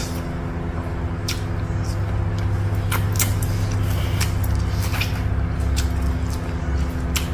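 Close-up chewing and wet mouth clicks of someone eating chicken by hand, a sharp click every second or so, over a steady low mechanical hum.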